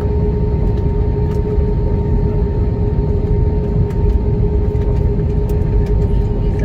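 Cabin noise inside an IndiGo Airbus A320-family jet during its landing rollout, ground spoilers up: a steady, loud rumble with a constant droning hum.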